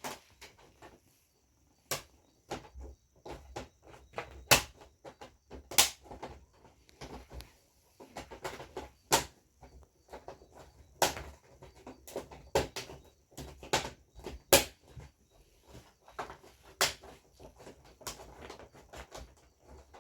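Irregular sharp clicks, taps and knocks, a few much louder than the rest, with soft handling noise between them: parts of an LED TV's backlight panel being handled and laid in place by hand.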